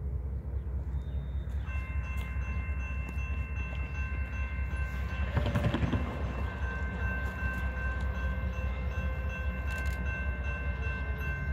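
Norfolk Southern diesel locomotive's air horn sounding one long, steady chord, starting about two seconds in and held without a break, over a steady low rumble. A brief burst of noise about halfway through.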